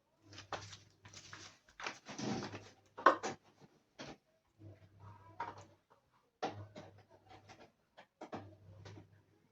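Irregular rustling and crinkling of plastic packaging with scattered sharp clicks, as a USB printer cable in its packet is handled and opened.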